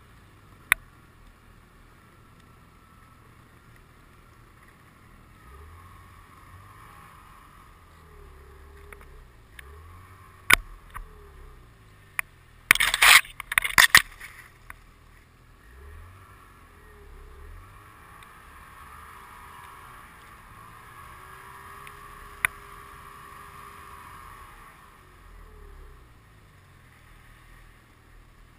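Snowmobile engine rising and falling in pitch as the throttle is worked, under a steady rush of wind and snow. A few sharp knocks, and a burst of loud hits and scraping about halfway through as the sled ploughs through deep snow spray and low branches.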